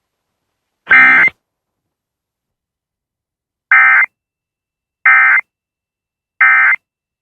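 Emergency Alert System end-of-message signal: three short, evenly spaced digital data bursts about a second apart, the SAME code that marks the end of the severe thunderstorm warning. They are preceded about a second in by one similar short electronic burst.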